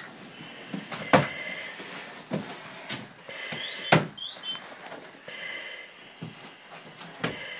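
Breathing through a firefighter's SCBA mask regulator: a hissing, faintly whistling rush with each breath, about every two seconds. Sharp knocks from gear about a second in and again about four seconds in.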